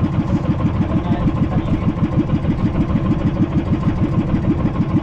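Small fishing boat's engine running steadily close by, with an even, rapid pulse, as the boat moves along while trolling.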